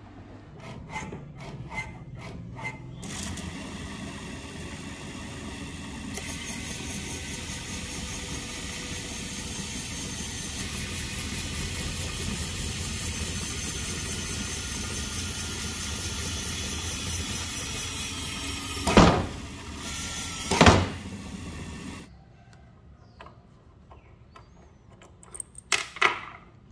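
A few light clicks, then the DC motor of a small homemade bench drill starts and runs steadily, driving the chuck through a toothed belt, with a high whine. Two loud short bursts come near the end of the run before the motor stops, followed by a few light clicks.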